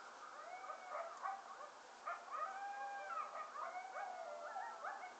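Coyote pack yipping and howling, played back from a video: a faint chorus of several overlapping short calls that rise and fall in pitch.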